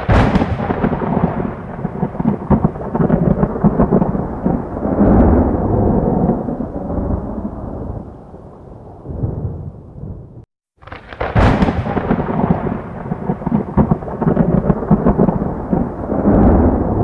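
Thunder: a sharp thunderclap rolling into a long, rumbling peal that cuts off suddenly about ten seconds in, then a second sharp crack about a second later that rolls into another long rumble.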